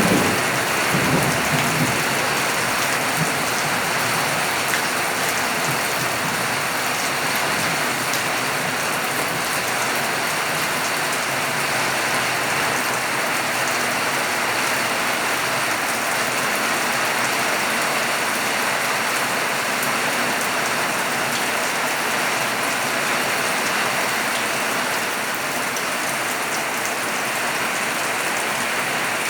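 Steady rain falling and pattering on surfaces, with the tail of a thunder rumble dying away in the first couple of seconds.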